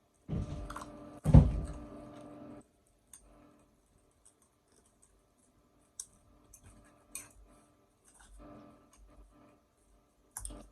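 A loud burp in the first two seconds, then quiet eating sounds: scattered small clicks and chewing.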